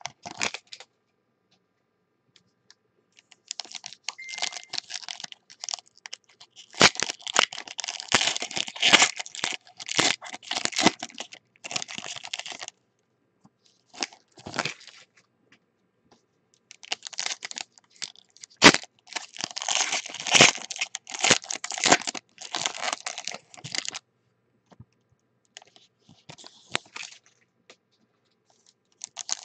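Foil trading-card pack wrappers crinkled and torn open by hand, in bursts of crackling with silent gaps between, and one sharp snap about two-thirds of the way through.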